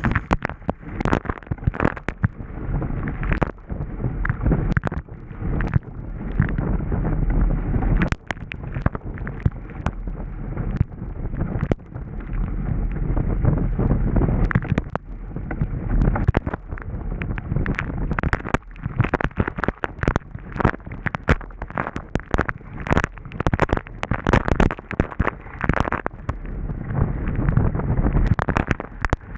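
Wind buffeting the microphone of a hull-mounted camera on a Hobie Bravo catamaran sailing fast, with spray and water slapping against the hull and camera. It is a continuous muffled rush broken by many sharp cracks and thuds.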